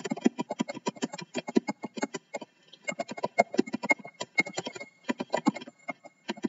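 Fast typing on a computer keyboard: a quick run of key clicks, several a second, breaking off briefly about two and a half seconds in and again near the end.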